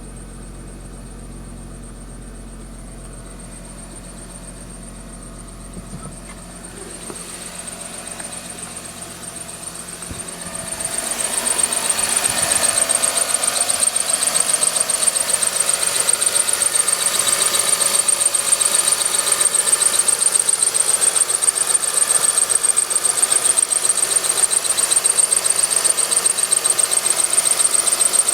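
Car engine idling from a cold start with a high-pitched whistle. The whistle grows louder about ten seconds in, then holds steady with a slight rapid flutter. It is the cold-start whistle that the owner says dies away after about five minutes at idle and vanishes at once when the throttle is pressed; the cause is undiagnosed.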